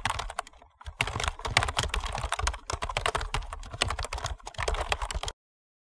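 Rapid keyboard typing clicks, a keystroke sound effect matching the on-screen text being typed out letter by letter. The clicks cut off abruptly about five seconds in.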